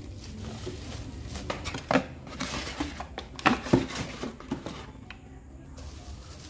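Plastic bags crinkling and a cardboard box and insert rustling as plastic-wrapped speakers are handled and lifted out of their packaging, with several sharp knocks of cardboard around the middle; quieter in the last second or so.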